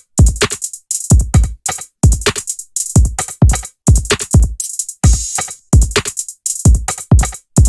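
Hip-hop drum-machine beat playing back through a dbx 160-style compressor plugin on the drum bus. Deep kick hits fall in pitch in a repeating pattern of about two a second, under bright hi-hats and snares.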